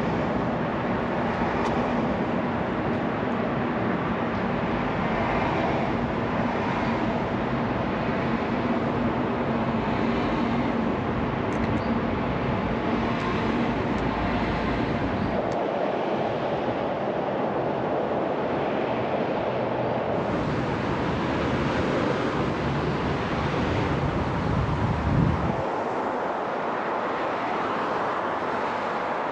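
Steady rush of road traffic from the lakeside road above, with a heavy low rumble from wind on the microphone that cuts out suddenly about halfway through and again near the end.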